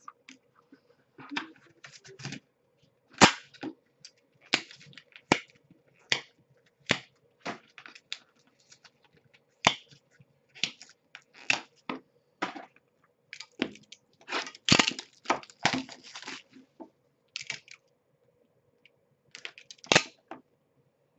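Hands handling and opening cardboard trading-card boxes on a glass table: a long run of sharp clicks, taps and crackles, quieter for a couple of seconds near the end, over a faint steady hum.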